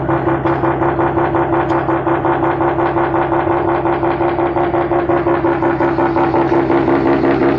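Mazda RX-8's twin-rotor Renesis rotary engine running steadily at constant speed, a rapid even pulsing with a strong steady drone and no revving.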